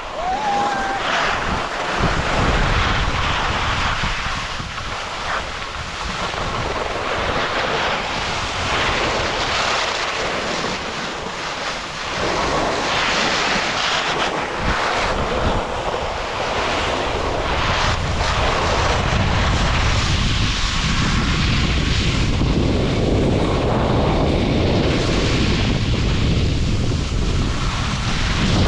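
Wind buffeting the microphone during a downhill ski run, with the hiss of skis sliding over snow.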